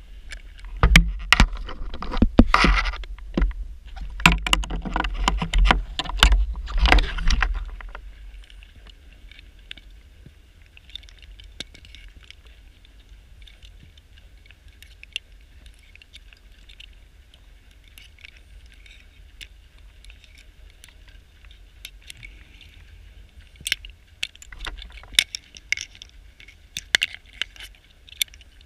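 Scuba diver's exhaled bubbles rumbling and crackling past an underwater camera for the first several seconds. Then a quieter stretch with faint underwater crackling, and more bursts of bubbles near the end.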